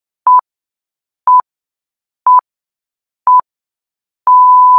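Electronic countdown beeps: four short, single-pitch beeps a second apart, then a long steady beep at the same pitch starting near the end.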